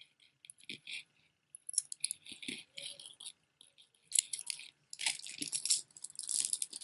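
Costume jewelry being handled: beads and chain rattling and clicking in an irregular patter, busier over the last few seconds.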